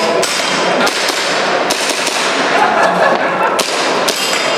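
Airsoft pistol firing several sharp shots at irregular intervals, over a steady background of voices and noise.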